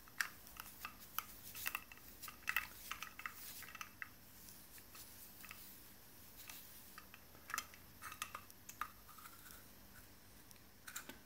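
Faint, irregular rubbing and small taps from a laptop screen being wiped dry to remove dust.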